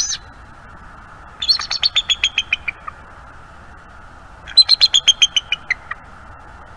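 Bald eagle calling: a short high squeal, then two runs of about a dozen rapid, high piping notes, each run about a second and a half long and falling in pitch.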